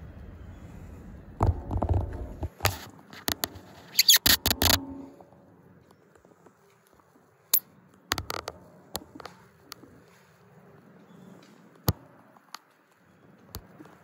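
Handling noise from a smartphone fitted with a clip-on telephoto lens: irregular clicks, knocks and scrapes, with dull thumps and a dense cluster in the first five seconds, then scattered single clicks.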